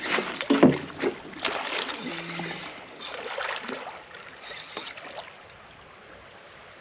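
Water splashing in irregular bursts as a hooked redfish thrashes at the surface in shallow water, settling to a quieter hiss about five seconds in.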